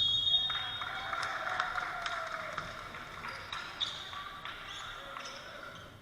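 Volleyball match in a gym: a short shrill tone at the start, then several seconds of players and spectators shouting together, with sharp ball hits and sneaker sounds, fading near the end.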